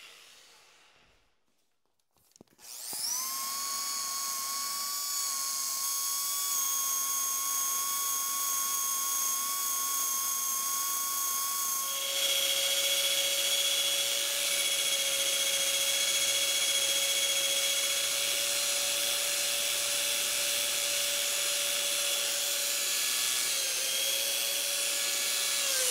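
Electric drill turning a homemade line-boring bar with its cutter taking a light pass through steel. After a short near-silence, the drill starts up a couple of seconds in and settles into a steady whine, which drops to a lower pitch and gets a little louder about halfway through.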